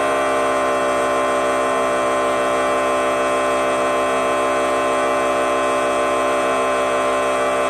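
A loud, steady horn-like blare made of many stacked tones, held without a break, with a slight regular wavering in it.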